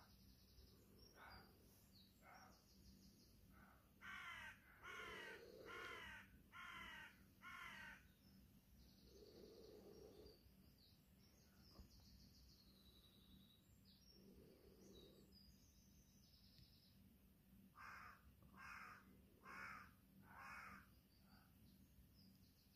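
Crow cawing in a series of five caws, then after a long pause four more, with faint higher bird chirping behind.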